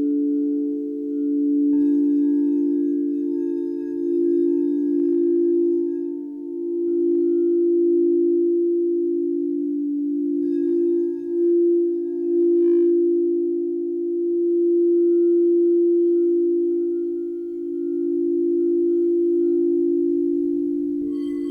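Crystal singing bowls ringing in several long, overlapping pure tones that slowly swell and waver. Fresh tones are brought in a couple of seconds in, about halfway through, and again just before the end.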